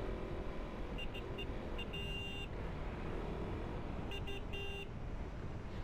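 Motorcycle running at low riding speed, with steady engine rumble and wind noise. Over it, a high electronic beeping pattern, a few quick beeps and then a longer beep, sounds twice: about a second in and again about four seconds in.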